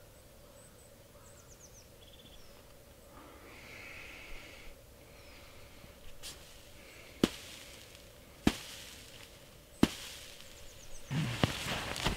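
Three sharp cracks about a second and a quarter apart, with a small bird's thin high calls faintly before them; near the end, footsteps on snow-covered forest ground.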